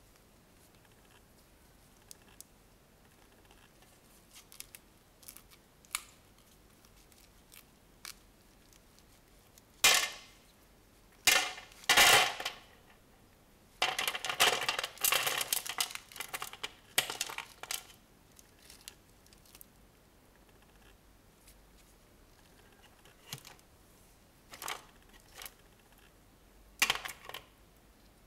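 Thin clear plastic orchid pot crinkling in the hand and bark chips rattling and spilling as an orchid is worked out of the pot. Scattered small clicks, with a few loud crackling bursts about ten seconds in, a dense run of crackling and rattling a little past the middle, and a few more near the end.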